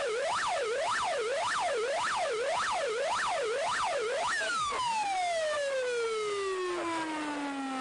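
A siren wailing in fast up-and-down sweeps, about two a second. About four seconds in it stops sweeping and winds down in one long, falling glide.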